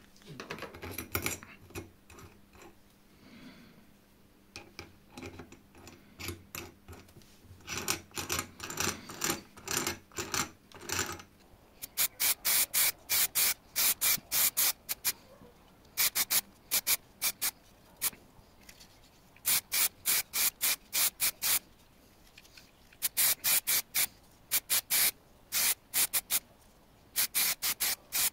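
Repeated hand rubbing and scraping strokes on metal, like filing or sanding. They are softer in the first part, then sharper and hissing, coming in quick runs of several strokes with short pauses from about twelve seconds in.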